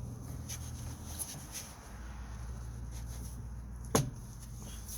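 Light knocks and rubbing of the plastic air filter box being fitted back into place, with one sharp click about four seconds in, over a steady low hum.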